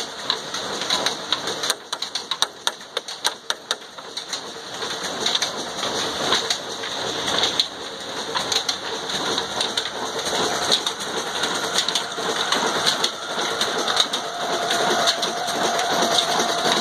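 Belt-driven stone flour mill (chakki) grinding, a dense steady rattle and hiss, with flat belts and pulleys turning from an old Ruston-type desi oil engine; a burst of sharp clicks comes a couple of seconds in and a steady whine joins near the end.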